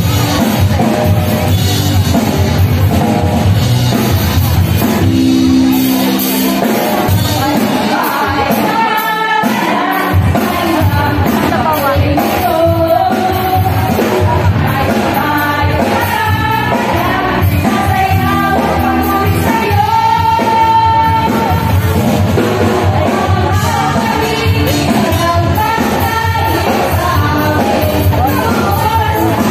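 A group of women singing a worship song through microphones, with a live band that includes a drum kit, in a large hall.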